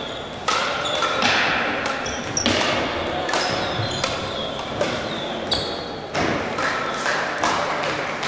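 Crossminton rally on an indoor hardwood court: rackets striking the speeder and sneakers squeaking and thudding on the floor, many sharp hits and short high squeaks echoing in the large sports hall.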